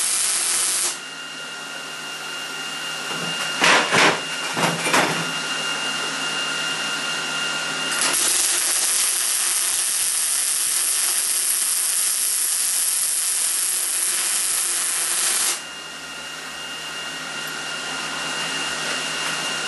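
Wire-feed (MIG) welder arc crackling and hissing as beads are laid on steel tubing: a weld that ends about a second in, then a longer bead of about seven and a half seconds that cuts off suddenly. In the pause between them a steady whine and a few short knocks.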